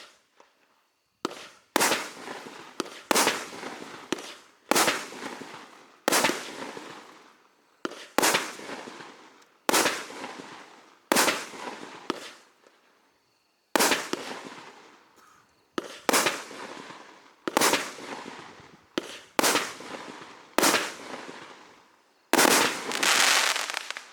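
A 16-shot 30 mm fireworks cake firing its shots one after another, roughly one every second or two. Each is a sharp bang with a fading tail, and the final shot near the end is the loudest and longest.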